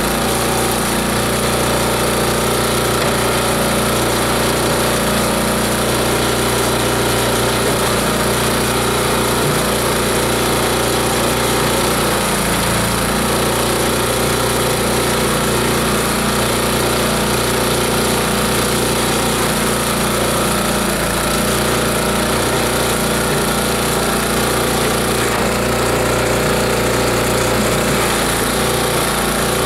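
Multi-blade chopper-shredder grinding machine running steadily at constant speed while being fed, its blades grinding material into a pile at the outlet.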